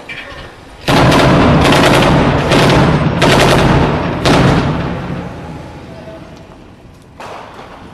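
Heavy weapons fire: a sudden, very loud burst about a second in, made of about five heavy blasts under a second apart, then a long rolling fade, with a smaller report near the end.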